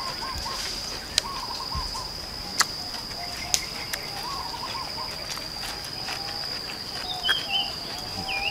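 A bird repeats a short warbling call several times, with a couple of higher chirps near the end, over a steady high-pitched insect drone. A few sharp crunches of raw chayote being chewed break in during the first half.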